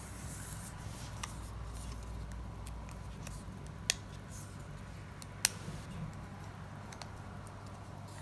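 Small plastic circles popping out of the holes in plastic Strandbeest fan blades as they are pushed through with a small iron rod, giving a few sharp clicks, the two loudest about four and five and a half seconds in, over a low steady hum.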